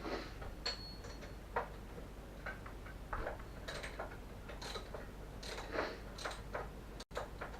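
Socket ratchet wrench clicking in short, uneven runs as a BMX sprocket bolt is tightened.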